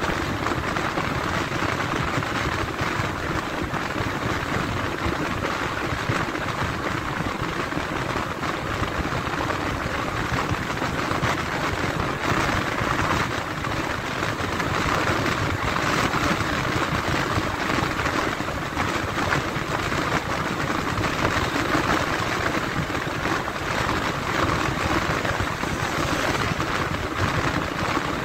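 Steady road noise of a moving vehicle: an even rushing hiss over a low rumble, with no clear engine note.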